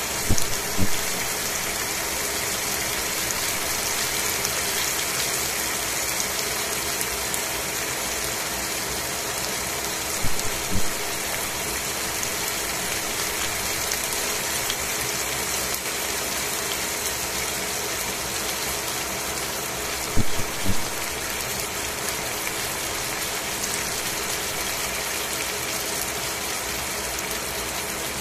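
Chicken pieces sizzling in a stainless steel pan: a steady frying hiss, with short clusters of louder pops near the start, about ten seconds in and about twenty seconds in.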